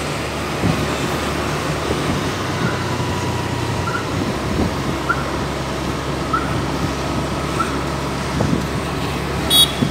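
Steady engine and road noise heard from inside a moving vehicle driving along a street, with a short high beep near the end.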